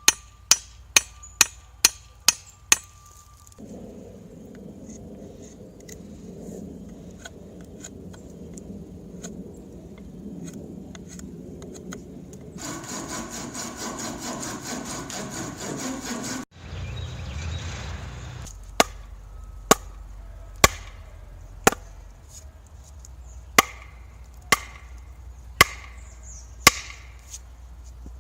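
Hand-tool work on a wooden axe handle: a quick run of hammer blows on wood, then a long stretch of steady scraping or sawing, then slower single hammer blows about a second apart near the end.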